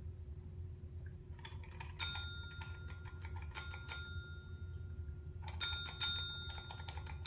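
Desk service bell struck several times, about five rings, each ringing on for a second or so, mixed with quick tapping clicks.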